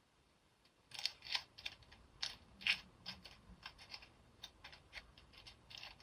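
Plastic candy packaging being handled and opened: irregular crinkling and sharp clicks, starting about a second in.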